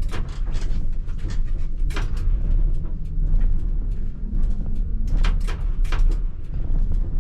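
ČKD Tatra T3R tram running along the track, heard from inside: a steady low rumble with frequent irregular clicks and knocks.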